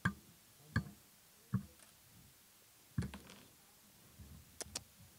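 A few scattered knocks on a tabletop or microphone stand, heard through close desk microphones, each with a low thud, then two quick sharp clicks near the end.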